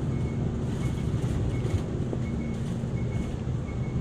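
Inside an Isuzu Erga Hybrid diesel-electric city bus under way: a steady low rumble of drivetrain and road noise, with faint short high beeps now and then.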